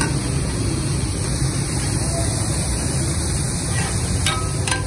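Steady background rumble and hiss under meat frying on a large iron tawa, with a few quick metal clacks near the end as the cook's spatula and blade strike the griddle, the clatter that gives taka tak its name.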